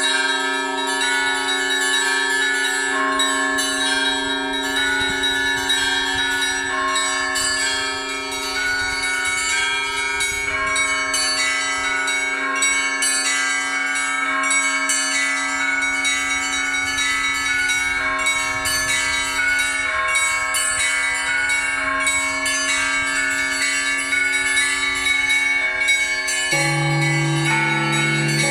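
Russian Orthodox church bells ringing together in a continuous peal of several smaller bells. A deeper, heavier bell joins about 26 seconds in.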